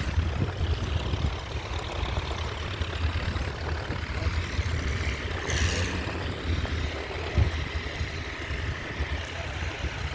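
Diesel engine of a New Holland T7 tractor running as it ploughs and comes closer, under a low rumble of wind on the microphone.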